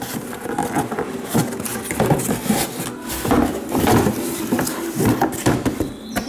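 A new clutch pressure plate being unpacked and turned over by hand: rustling packaging with irregular light knocks and clicks.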